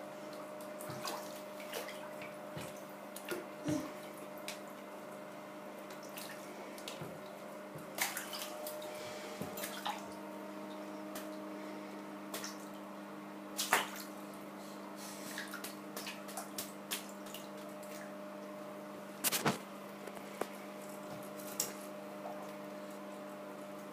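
Shallow bathwater lightly splashing and dripping as a toddler paddles her hands in the bath, in scattered small splashes with a few louder ones. A steady low hum runs underneath.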